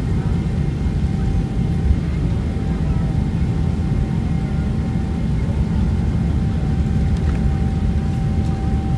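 Boeing 777-300ER's GE90 jet engines running with a loud, steady low rumble and a thin steady whine above it.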